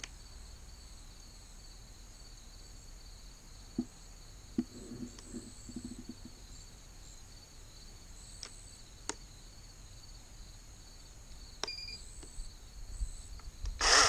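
Kobalt 80-volt cordless chainsaw being switched on: a few faint handling clicks, a short high beep about three-quarters of the way through, and then its electric motor and chain suddenly whir into motion at the very end, the loudest sound here. Steady insect chirring underneath.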